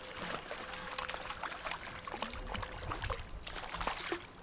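Water splashing in quick irregular bursts as a hooked sea bass thrashes at the surface while being reeled in.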